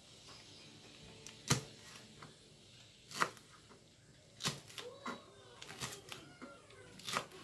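Kitchen knife slicing green chillies on a plastic cutting board: a handful of sharp, separate taps as the blade strikes the board, at a slow, uneven pace.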